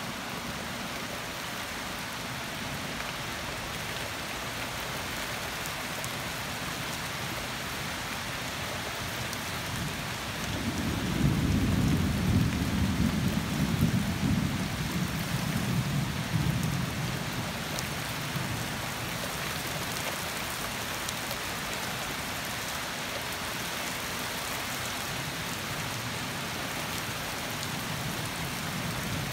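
Steady rain falling throughout. About ten seconds in, a low rumble of thunder swells, is loudest for a few seconds, and dies away over about six seconds.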